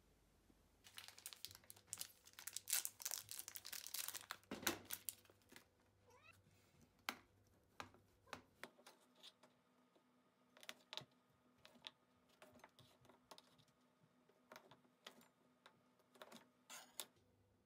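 Kitchen knife cutting a block of mochi on a plastic cutting board: sharp, irregular taps of the blade meeting the board. These follow a few seconds of dense crackly rustling near the start.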